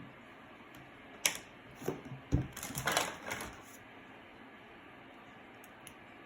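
Handling noise from small hard objects: a few separate sharp clicks and taps, then about a second of close-together clattering in the middle.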